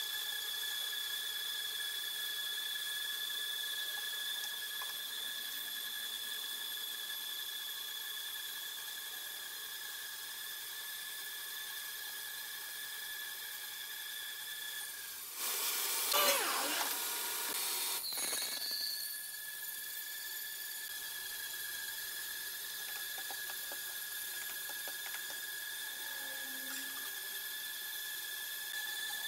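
Horizontal band sawmill cutting a large hardwood log: a steady high-pitched whine from the blade in the wood. Just past the middle it is broken for about three seconds by a louder noisy burst that ends in a sharp click.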